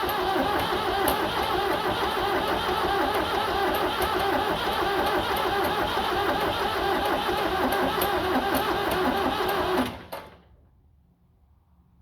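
The starter cranks the Ford 7610 tractor's diesel engine steadily for about ten seconds without it firing, then the cranking stops. It is a no-start: fuel is reaching the lift pump, and the owner wonders whether the engine has no compression.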